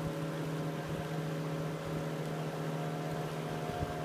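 Boat engine running at a steady speed, a constant even-pitched drone.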